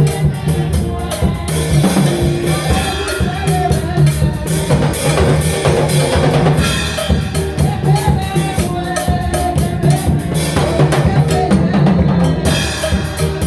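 Instrumental break of a gospel worship song: a drum kit keeps a steady beat with kick and snare under a bass line and a melody, without singing.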